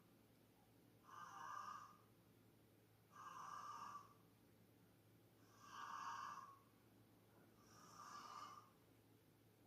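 A sleeping person snoring faintly and regularly: four snores, each just under a second long, about two seconds apart.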